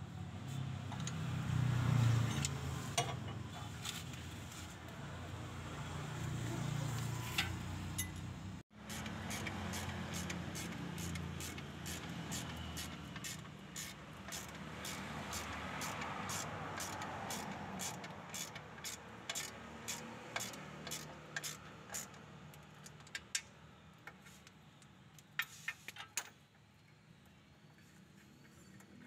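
Ratchet wrench clicking in quick runs, a few clicks a second, while the clutch pressure-plate bolts are run in and tightened. A few louder single metal clicks come near the end. A low rumble sits underneath, strongest in the first few seconds.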